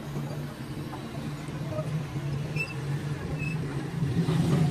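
Mobile crane's diesel engine running steadily while holding a combine harvester on its hook, the engine growing louder about four seconds in.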